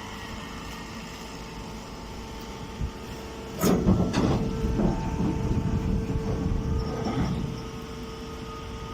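Hydraulic hay baler press running: a steady machine hum, then from about three and a half seconds in a sudden burst of loud clanking and rattling that eases off near the end.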